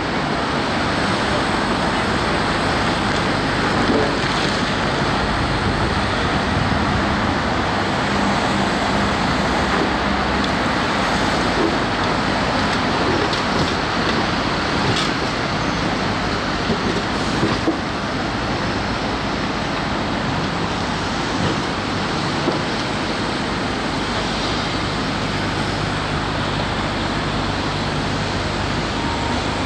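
Steady din of road traffic and heavy machinery, with the diesel engine of a loaded Scania tipper truck running.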